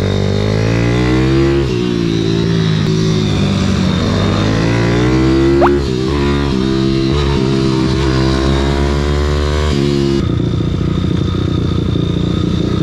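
Single-cylinder four-stroke engine of a YCF SM 190 Daytona pit bike heard on board, revving hard and climbing in pitch between gear changes, with drops in revs about two and six seconds in. About ten seconds in it cuts suddenly to a steadier, lower running sound as the bike idles.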